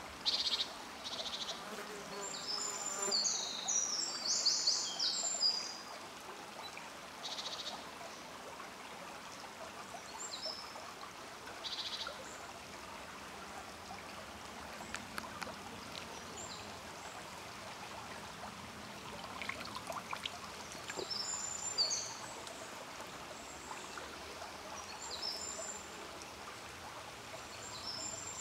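Woodland birds singing in short bursts of quick, high notes several times, over a steady quiet background hiss.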